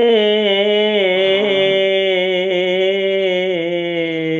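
An elderly man singing a Bengali ghazal, holding one long note with a wavering pitch that breaks off near the end.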